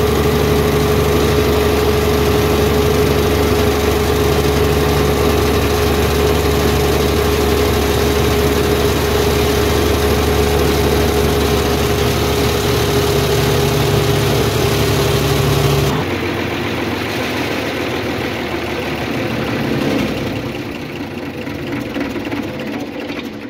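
Diesel engine of a 200 kVA Kirloskar silent generator running steadily, a constant hum with a clear steady tone. About two-thirds of the way in the sound changes abruptly to a quieter running, which dies down toward the end.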